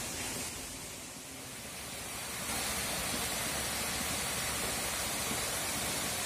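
Steady rushing hiss of water pouring from inlet pipes into crowded concrete catfish tanks. It grows louder about two and a half seconds in and then holds steady.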